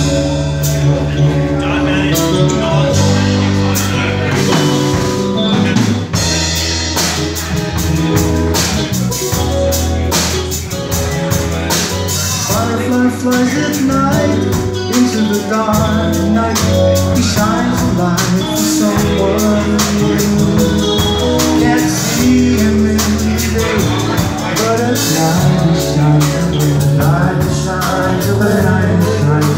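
Live band playing a song: two acoustic guitars strumming over an electric bass line and a drum kit, with a man singing lead.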